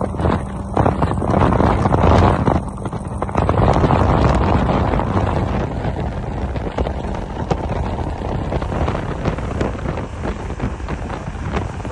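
Suzuki 140 four-stroke outboard running at planing speed under heavy wind buffeting on the microphone, with frequent short thumps and splashes from the hull on the chop. A steady engine hum is clearest in the first three seconds, then sinks under the wind.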